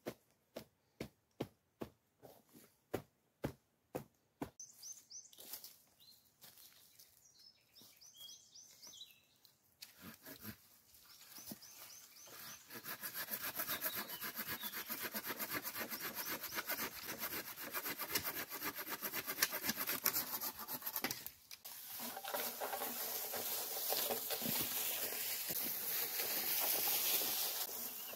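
Hand saw cutting through a fallen branch with fast, rhythmic strokes over the second half, pausing briefly once before carrying on. Before that come a row of sharp knocks about two a second and a few bird chirps.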